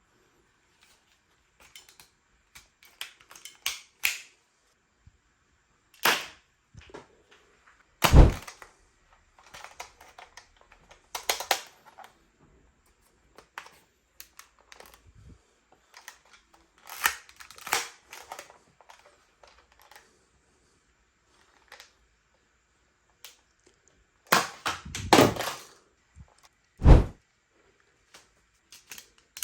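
Toy spring gun being handled, cocked and fired: scattered plastic clicks and rattles with several sharp snaps and thuds, the two loudest thuds about a third of the way in and near the end.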